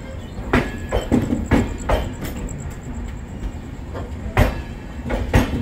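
Passenger train running on the track: a steady low rumble with irregular sharp clacks of the wheels passing over rail joints.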